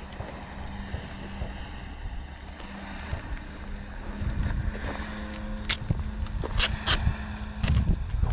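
Wind buffeting the microphone with a steady low hum underneath, broken by a few short sharp rasps in the second half.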